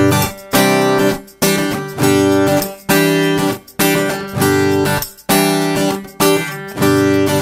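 Background music: an acoustic guitar strumming chords, with a fresh strum about once a second.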